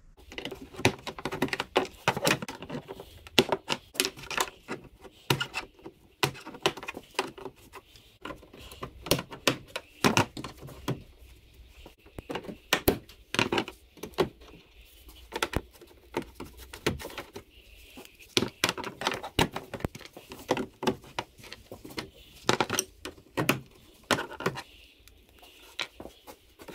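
Hand-tool work on plastic trim: irregular clicks, taps and clatters as plastic push clips are pried out and Torx screws are taken out along the top of a car's front bumper cover, with a screwdriver and a plastic trim tool knocking on the plastic.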